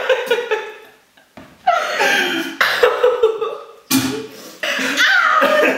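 A man coughing over a bucket from the burn of a raw red chili pepper, mixed with a man's and a woman's laughter, in several bursts with a short lull about a second in.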